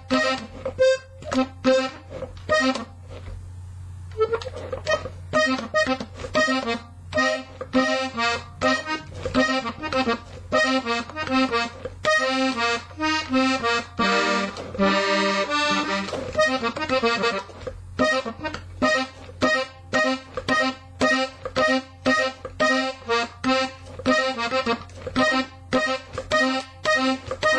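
Hohner Panther three-row diatonic button accordion played solo, picking out a norteño corrido melody in quick, clipped notes, with bass buttons alongside.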